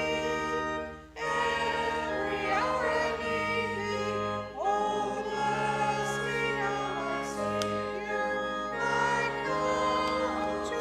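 Congregation singing a hymn with instrumental accompaniment, held notes, with a short break between phrases about a second in.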